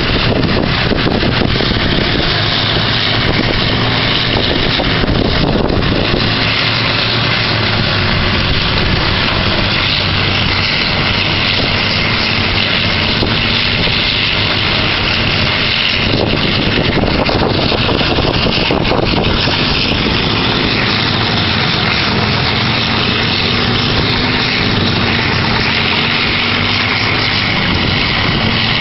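Horizontal wood grinder and excavator working together: a loud, steady machinery din, with a continuous engine hum under dense noise. The engine pitch wavers slightly now and then.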